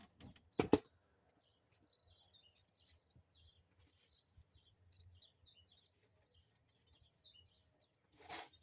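Faint high bird chirps and tweets, many short calls one after another, with a sharp knock about a second in and a louder thump near the end.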